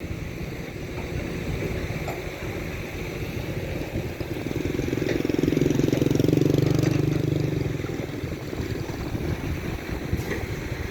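A motor vehicle's engine running, growing louder for about three seconds midway, then easing back off.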